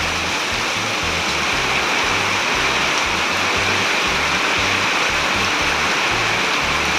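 Steady hiss of heavy tropical-storm rain, with background music's bass line running underneath.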